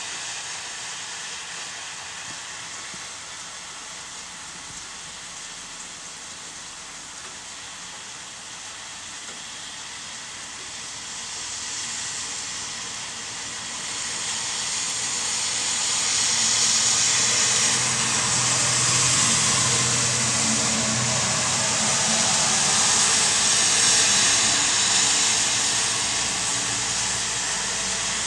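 Steady hiss of rain and tyre noise on a wet road. It grows louder about halfway through as a low hum comes in under it.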